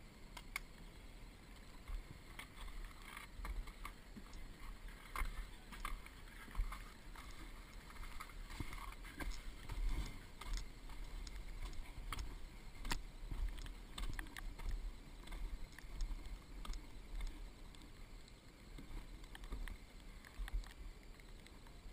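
Footsteps crunching over snow, irregular steps and knocks over a steady low rumble.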